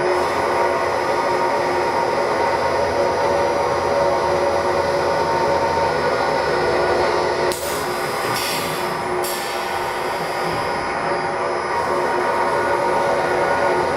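JN-883 tape-cutting machine running with a steady mechanical drone made of several steady tones. It dips briefly about seven and a half seconds in, followed by a short high hiss.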